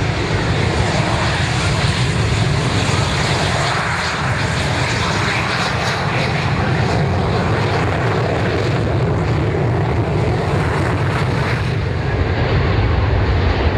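Jet noise from several BAe Hawk trainers' Rolls-Royce Turbomeca Adour turbofans at high power on the takeoff roll: a loud, steady rush with a heavy low rumble. It grows a little louder near the end.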